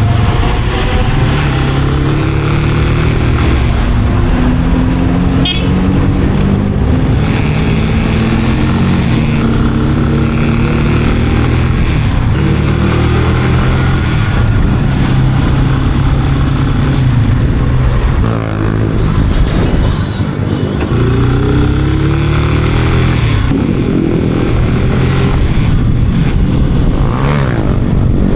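Italika RC 250 motorcycle engine pulling hard through the gears: the pitch climbs and drops back at each upshift, again and again. About two-thirds of the way through the revs fall away briefly as it slows, then it accelerates again.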